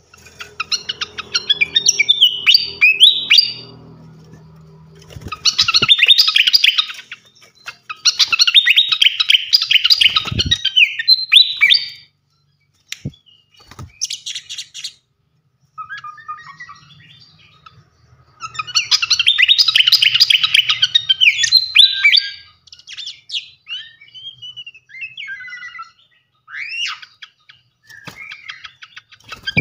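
Srikatan kipas songbird singing in loud bursts of rapid, chattering high notes, each burst a few seconds long, with short pauses and scattered single calls between them. A low hum sits under the first few seconds.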